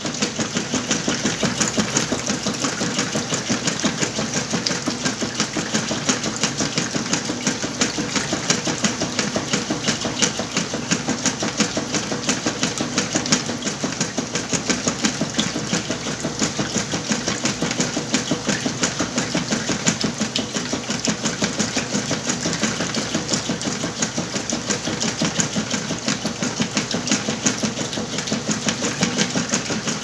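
Whirlpool top-load washing machine agitating a load of bed blankets in water: a steady motor and drive hum with a fast, even pulsing of the agitator and the sloshing wash water.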